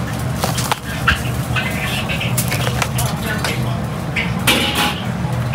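Busy hawker-stall din: a steady low hum with scattered clinks and knocks of utensils, background chatter, and a short hiss about four and a half seconds in.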